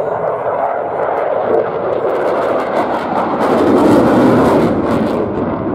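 Eurofighter Typhoon's twin EJ200 turbofan jet engines running in afterburner as the fighter banks hard. A loud, continuous jet noise with a rapid crackle swells to its loudest a little past halfway, then eases slightly.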